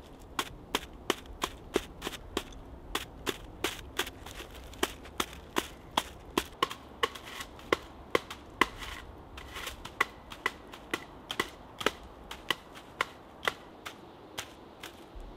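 A handled block of wood beating the butt ends of water-reed thatch to dress it, driving the reeds up into an even face. It gives a steady run of sharp, dry knocks, about three a second.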